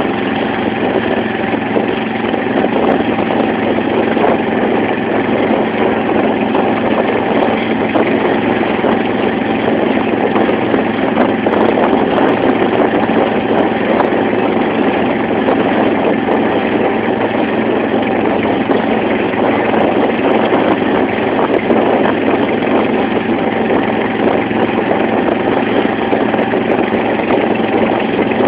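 Engine of a wooden banka motorboat running steadily under way, with water rushing and splashing along the hull.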